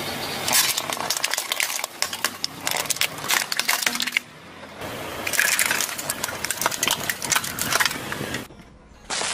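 Hollow plastic toy ducks cracking and crunching under a car tyre as they are crushed: dense crackling in two long bouts, broken by a short pause a little past the middle.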